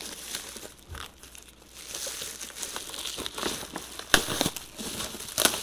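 Plastic bubble wrap crinkling and rustling as it is handled and pulled open, with a few sharp crackles about four seconds in.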